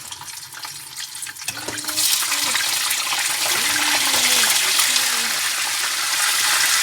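Mackerel fish sizzling as it fries in hot oil in a frying pan: a steady, loud hiss that swells about two seconds in and stays loud.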